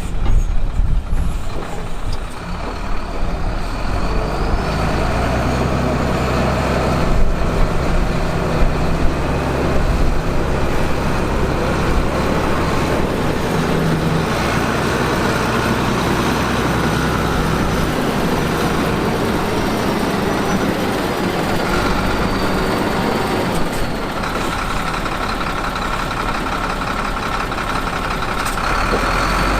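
Heavy construction machinery running: diesel engine noise throughout, with a few clanks about seven to nine seconds in.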